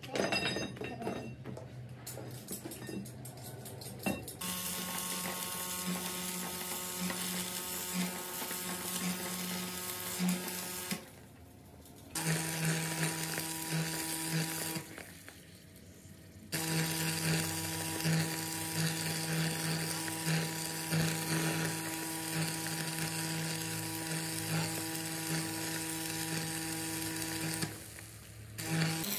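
Stick welding on a truck's axle housing: the arc crackles and buzzes over a steady hum, starting about four seconds in, after a few clicks. It runs in long stretches, broken by a few short pauses.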